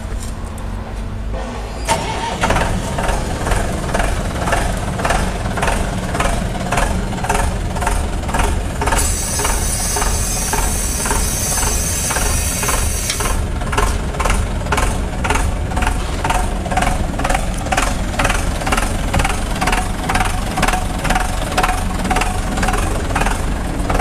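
Trailer-mounted concrete mixer pump running. About two seconds in, as a switch on its control box is worked, it grows louder with a steady rhythmic pulse of about two to three strokes a second. A hiss joins in for a few seconds in the middle.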